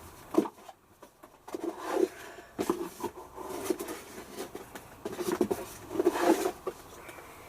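Handling noises of Daz washing detergent being measured out: irregular rustling and scraping with light knocks, louder around six seconds in.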